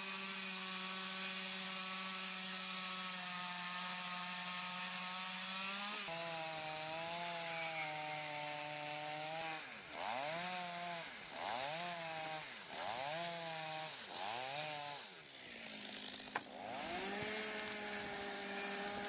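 Chainsaw running at steady high revs while cutting a corner notch into a debarked log. From about ten seconds in its pitch sags and recovers four times in quick succession as the chain bites into the wood.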